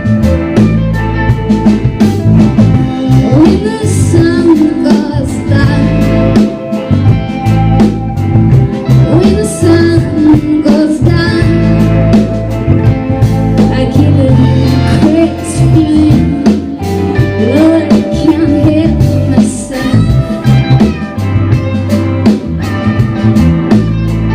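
Live band playing a bluesy country-rock song, with guitars, bass and a drum kit keeping a steady beat.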